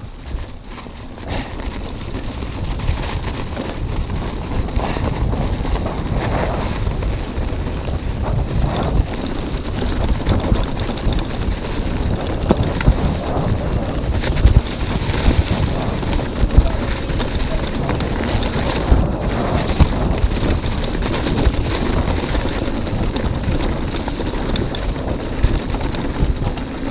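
Wind rushing over the camera microphone and a Chumba Stella hardtail mountain bike's tyres rolling fast over dry leaves and dirt on a downhill run, building over the first couple of seconds as speed picks up. Scattered sharp knocks from the bike hitting bumps.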